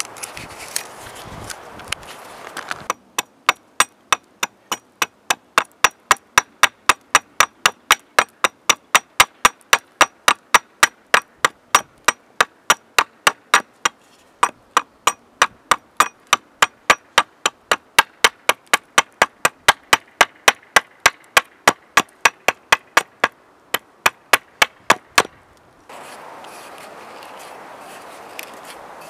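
Axe chopping a small piece of wood held upright on a chopping stump. Quick, sharp, even strikes about three a second, with two short breaks, start a few seconds in and stop a few seconds before the end. A faint steady background hush comes before and after them.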